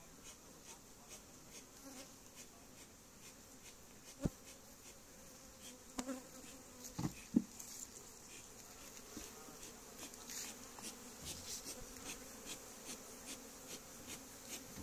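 Honeybees buzzing around an opened wooden hive while the comb frames are lifted out. A few knocks come about four seconds in and twice around seven seconds in.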